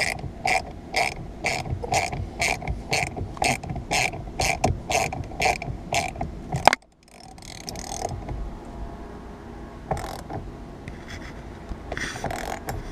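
Ratchet wrench clicking in quick, even strokes, about three clicks a second, as it tightens the steering-wheel centre bolt. The clicking stops suddenly about halfway through, and a few softer clicks follow later.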